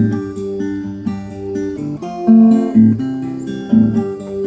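Solo acoustic guitar playing a chord pattern, with no voice.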